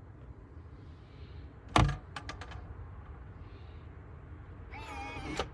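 A door thuds, then three quick clicks come from the lock hardware. Near the end there is a short, wavering, high-pitched sound.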